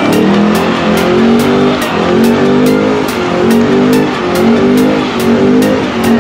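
Ford Mustang doing a burnout: the engine is held at high revs, its pitch rising and falling in quick repeating surges two to three times a second, while the rear tires spin and smoke on the ground.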